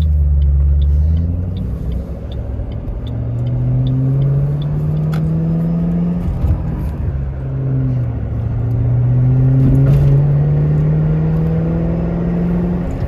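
Ford Mustang's engine accelerating through the gears of its six-speed manual transmission. The pitch climbs, drops at an upshift about six seconds in, then climbs again and drops once more near the end. A faint regular ticking is heard in the first few seconds.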